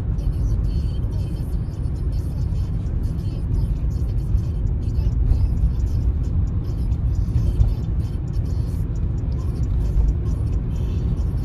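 Steady low rumble of road and engine noise inside a moving car's cabin at cruising speed.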